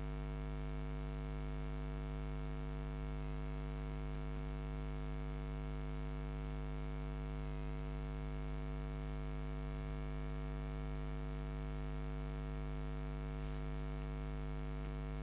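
Steady electrical mains hum, a low buzzy drone made of many evenly spaced tones, holding at an even level.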